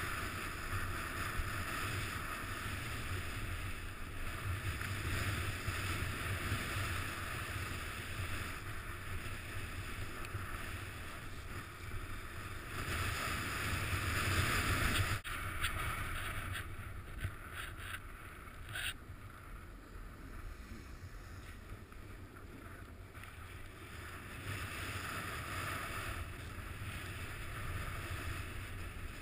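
Snowboard sliding over snow, a steady hiss that swells and fades through the turns, with wind rumbling on the microphone. A sharp click sounds about halfway through.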